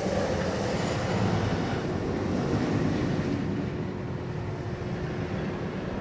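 Bolliger & Mabillard hyper coaster train running past on its steel track, a steady rumble that builds over the first second or so and eases off after about three seconds.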